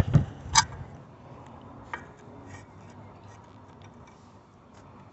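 A few light, irregular metal clicks and taps, the sharpest just over half a second in and another about two seconds in, as hood-latch bolts and hardware are handled and started by hand.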